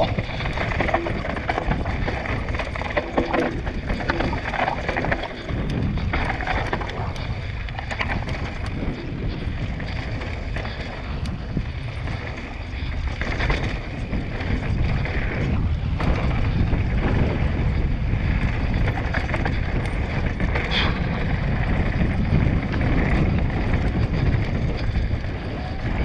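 Mountain bike descending a dry dirt and rocky trail at speed: wind buffeting the microphone over the rumble of knobby tyres on dirt and gravel, with frequent knocks and rattles from the bike over bumps and rocks.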